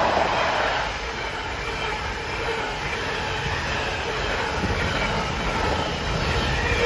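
Intermodal freight train's container flat wagons rolling past: a steady rumble and rush of wheels on rail, easing slightly about a second in and then holding even.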